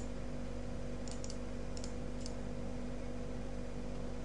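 Computer mouse button clicked about five times in the first half, light sharp clicks spaced a fraction of a second apart, over a steady low hum.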